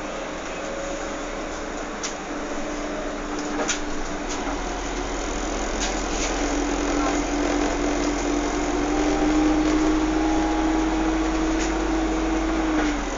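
A vehicle running. Its steady motor hum rises slightly in pitch and grows louder through the middle, then drops away sharply at the end, with a few scattered clicks over it.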